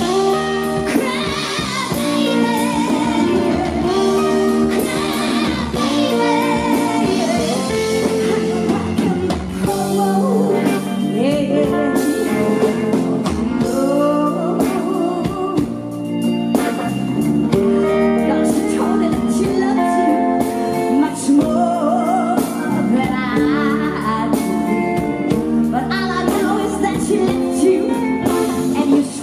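Live blues-rock band: a woman singing lead over electric guitar, bass guitar and drums.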